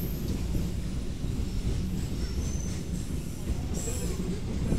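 Container freight train's wagons rolling past below, a steady low rumble of wheels on rail. Brief high-pitched wheel squeals come twice from the wheels on the curving track, about halfway through and near the end.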